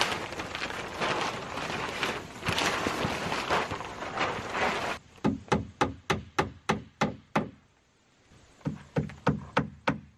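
Synthetic roofing underlayment sheet rustling as it is spread out over OSB. About halfway through, a claw hammer starts driving nails through it into the decking in quick runs of about four strikes a second, with a short pause between two runs.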